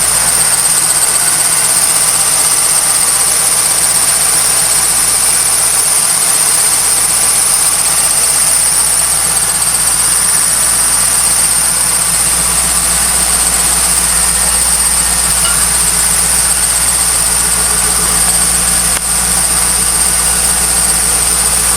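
1998 Pontiac Trans Am's LS1 V8 idling, with a steady high-pitched, bird-like chirping from the accessory belt drive. It is the sign of a dry-rotted A/C belt, though worn pulleys can cause the same noise.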